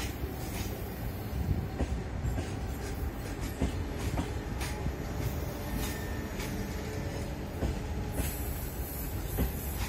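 Passenger train coaches rolling past over the rails: a steady low rumble with irregular sharp clicks of the wheels over rail joints, a few per second.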